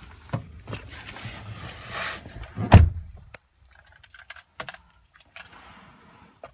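Car keys jangling and rattling with handling clicks, and one heavy thump about three seconds in, followed by a few scattered light clicks as the key is readied for the ignition.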